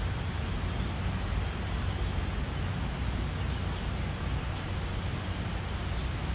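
Steady low rumble and hiss of traffic on the concrete road bridge overhead.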